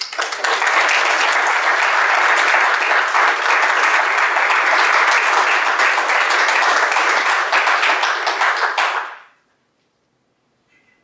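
Audience applauding: dense, steady clapping that begins abruptly and fades out quickly about nine seconds in.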